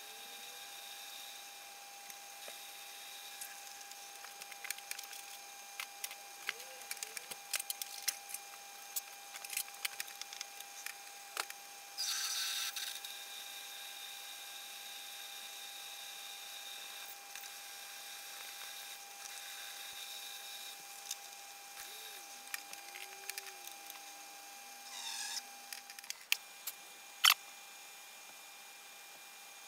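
Metal lathe running with a steady whine while a twist drill fed from the tailstock bores into a spinning aluminium bar, with scattered ticks and two short scraping bursts from the cut. A few sharp clicks near the end.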